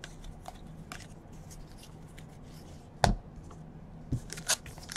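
2017 Donruss baseball cards being handled and flipped through by hand: faint card slides and ticks, with one sharper click about three seconds in and a few more near the end.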